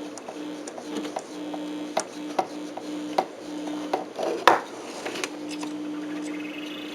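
A steady low hum that cuts in and out, with scattered clicks and one louder knock about four and a half seconds in, like hands handling equipment.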